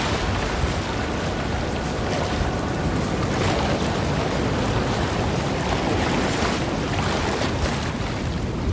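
Small waves washing in over a sandy shoreline, a steady surf wash, with wind buffeting the microphone.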